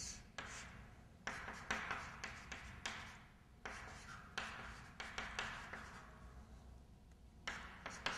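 Chalk drawing on a blackboard: a string of short scratching strokes, each starting with a light tap, coming irregularly with brief pauses between lines.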